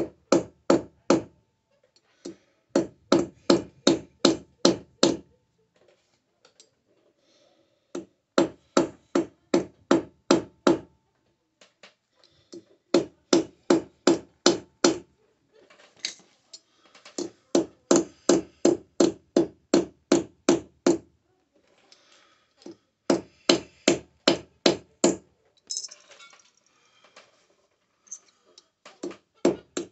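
Hammer striking a sterling silver bar during hand forging, in runs of sharp blows about four a second with short pauses between runs.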